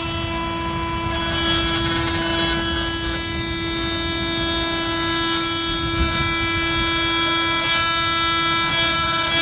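Milwaukee M18 Fuel oscillating multi-tool running with a steady, high buzz while its 1 3/4-inch wood blade plunge-cuts through a pine 2x4. The buzz gets louder about a second in as the blade bites into the wood. Its pitch holds steady under the load, a sign the tool is not slowing.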